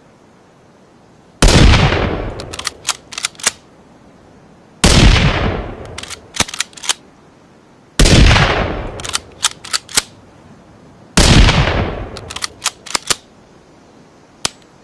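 Rifle gunshot sound effect, a blend of Ruger American rifle shots: four loud shots about three seconds apart, each with a fading tail and followed by a quick run of sharp clicks.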